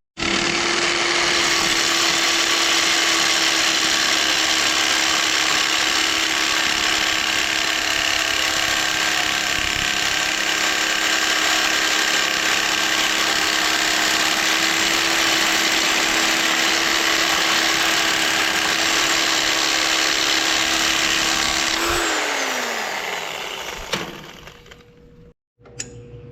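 Electric power tool motor running steadily at full speed, then switched off and winding down with a falling pitch about 22 seconds in.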